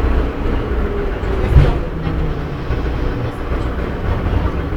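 Metro train running, heard inside the carriage: a steady low rumble of wheels and motors, with one loud thump about one and a half seconds in.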